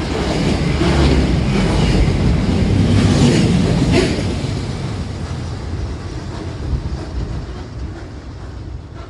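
Freight train rolling past, a steady rumble with wheels clicking over rail joints about once a second, then fading steadily after about four seconds as the train moves off.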